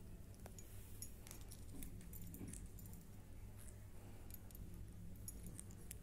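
Faint, scattered clicks and ticks of green-cheeked conures' beaks picking and nibbling at a custard apple held in the hand, over a low steady hum.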